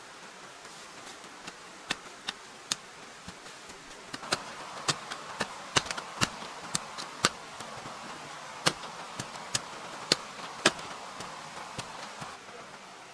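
Sharp, irregular knocks of a hand tool striking wood, one or two a second, over a faint steady hiss.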